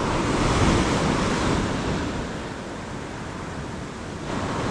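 Ocean surf breaking and washing up a sandy beach, with some wind on the microphone. The wash is strongest in the first second, eases off, and the next surge builds near the end.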